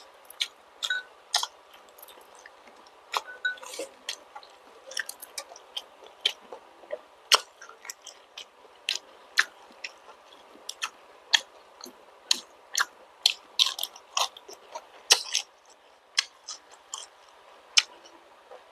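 Close-miked chewing of balut (fertilized duck eggs) with vegetables: irregular sharp wet mouth clicks, about two a second.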